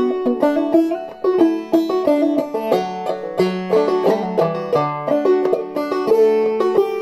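Solo open-back banjo played clawhammer style in open D tuning: a brisk, bright melody of quickly decaying struck notes, several a second, over a lower sustained note.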